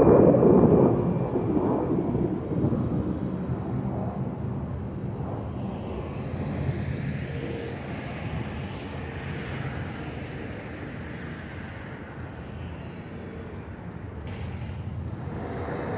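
Jet airliner passing overhead after takeoff, its engine rumble loudest at the start and fading steadily as it climbs away.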